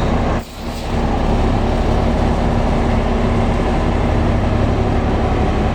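SD32 crawler bulldozer's diesel engine running steadily with a deep, continuous drone, broken by a brief drop in level about half a second in.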